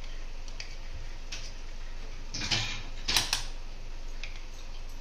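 Metal wire whisk scraping and knocking against a plastic measuring cup and a glass bowl as butter is scraped out, with a few light clicks and two louder scrapes about two and a half and three seconds in, over a low steady hum.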